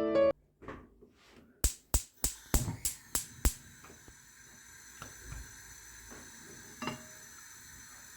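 Piano music cuts off, then about six sharp kitchen knocks in quick succession, followed by a faint steady hiss with a few light clicks.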